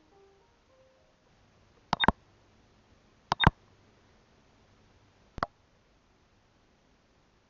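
Three sharp camera clicks about two, three and a half and five and a half seconds in. The first two each carry a short high beep.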